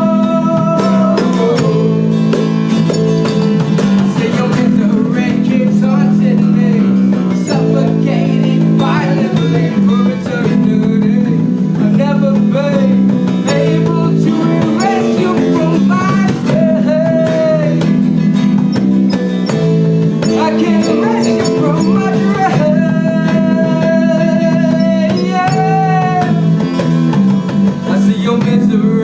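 Live band music led by guitar, with singing over sustained chords.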